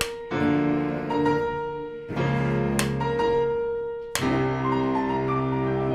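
Background music: slow piano chords, a new chord struck about every two seconds.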